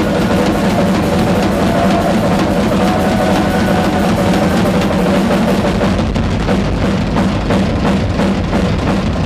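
Live drum solo on a ddrum drum kit: rapid, dense strokes on drums and cymbals, loud and steady. About six seconds in the cymbal wash drops back and fast low drum strokes carry on.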